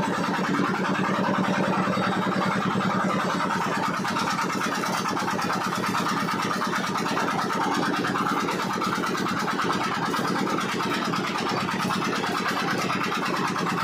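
An engine idling with a steady, even pulse.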